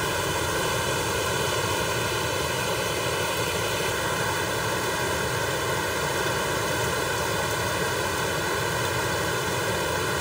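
River in spate: a steady, unbroken rush of floodwater.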